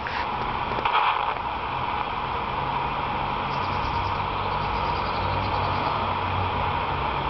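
Steady outdoor traffic noise: a low engine hum sets in about two seconds in, and a brief louder rush comes about a second in.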